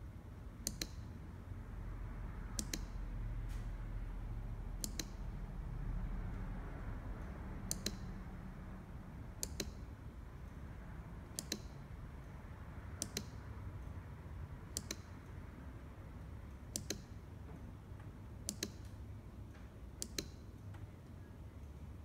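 Short sharp clicks, about one every two seconds, over a low steady room rumble. They fit a push-button switch being pressed to step an LED dash light through its flash patterns.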